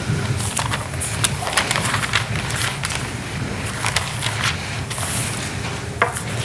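Bible pages being turned and leafed through, heard as irregular short paper rustles and flicks over a steady low room hum.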